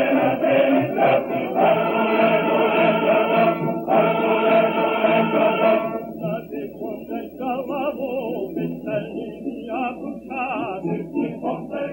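Title music with choral singing. The full, dense choir sound thins and grows quieter about halfway through, leaving fewer wavering voices.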